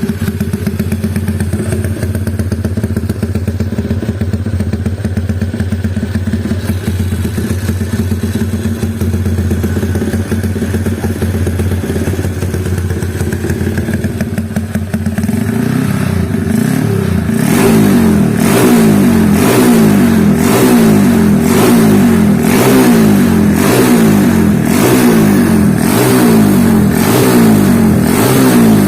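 Honda Mega Pro single-cylinder four-stroke motorcycle engine with a stroked-up 66 mm crank, running at a steady idle. After about fifteen seconds it picks up, then it is blipped repeatedly, a little more than once a second.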